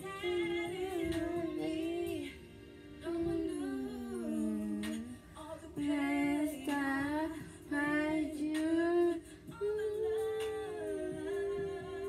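A female voice singing a slow melody in long held notes with vibrato.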